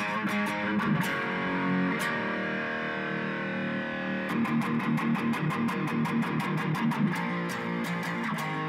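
Electric guitar music over a steady beat, with a held chord in the middle before the rhythm picks up again.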